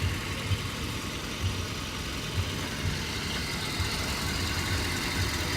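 Toyota Kijang kotak engine idling steadily with a low, even pulse, running smooth.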